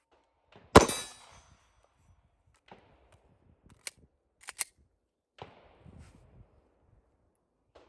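A single pistol shot about a second in, with a short echo trailing off, followed by a few faint clicks and clatters of gun handling.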